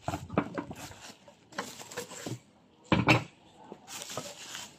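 Bubble wrap and plastic rustling as tin cans are lifted out of a cardboard box, with a few knocks of metal cans against each other and the box, the loudest about three seconds in.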